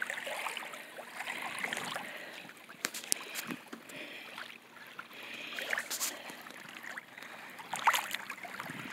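Shallow water lapping and splashing at the water's edge, with a few sharper little splashes.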